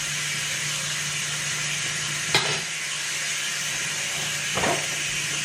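Butter sizzling steadily on a hot griddle, with two brief knocks, about two and a half and four and a half seconds in.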